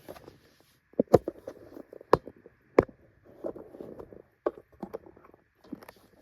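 Camera being handled and repositioned close to the microphone: several sharp knocks and clicks, the loudest about one, two and three seconds in and another about four and a half seconds in, with rustling between.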